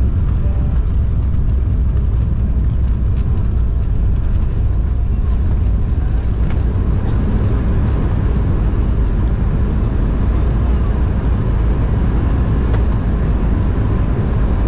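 Steady rumble of an Embraer E190 airliner heard from inside the passenger cabin: engine and airflow noise with a heavy low roar, unchanging throughout.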